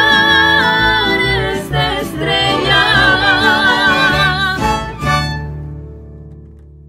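A mariachi ensemble of voices, violins, trumpets and guitars plays and sings the closing phrase of a song. The final chord stops abruptly about five seconds in, leaving low bass notes ringing and fading.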